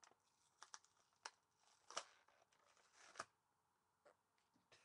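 Plastic toy packet crinkling and crackling as it is opened and handled, in a run of short sharp crackles with the loudest about two and three seconds in.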